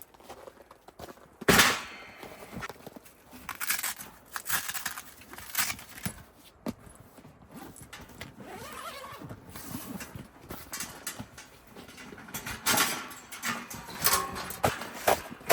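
Irregular knocks and clatter with rustling, the sharpest knock about a second and a half in.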